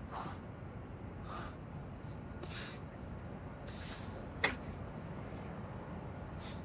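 A man breathing hard during push-ups, with four short, hissy exhalations about a second apart. About four and a half seconds in there is one sharp click as he comes up from the floor.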